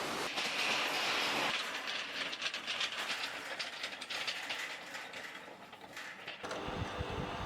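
Komman Monster Forceline 2700 automatic carpet washing machine running during a rug wash. A hiss in the first second and a half gives way to a fast, rhythmic mechanical clatter, and a low rumble sets in about six and a half seconds in.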